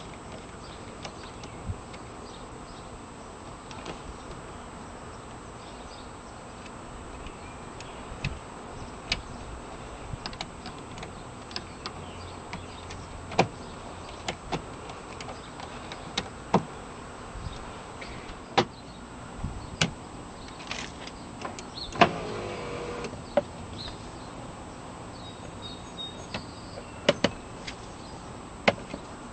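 Scattered sharp clicks and knocks of plastic trim pieces and hand tools as a van's interior door panel and bezel are fitted back on, with a brief whir of a small electric motor a little over two-thirds of the way in.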